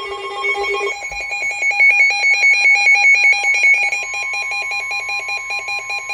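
Electronic Emergency Alert System alert tones. A pitched tone pattern switches about a second in to a fast, evenly pulsing beep, and a steady tone joins about four seconds in.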